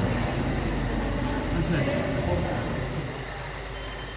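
Indistinct background voices over a steady hum and hiss, fading in the last second or so.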